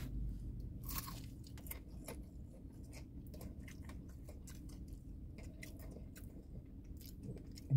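A person quietly chewing food, with many small crunches and mouth clicks, over a low steady hum.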